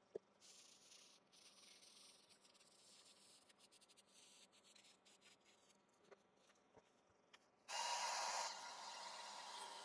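Faint cloth rubbing on the wood with small clicks, then about eight seconds in a hand-held hair dryer switches on and blows steadily, drying a freshly applied coat of sanding sealer. It is loudest for its first moment, then settles.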